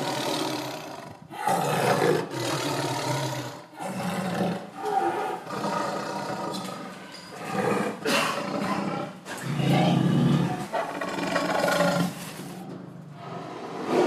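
Tiger roaring: a string of rough roars, one every two seconds or so, each broken off by a short pause.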